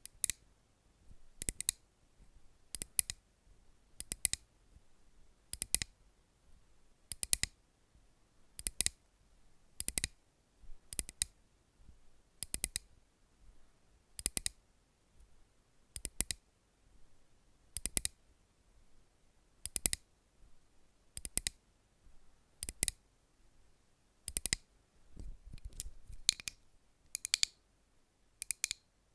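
Sharp, crisp clicks at a slow, even pace, about one every one and a half seconds, many of them quick double clicks; near the end they come a little closer together.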